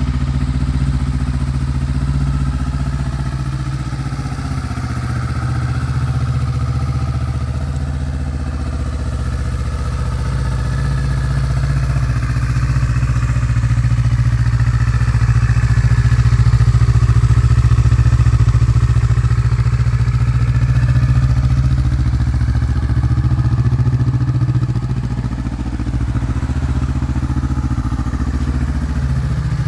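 Kawasaki Vulcan S's 649 cc parallel-twin engine idling steadily through a black slip-on exhaust.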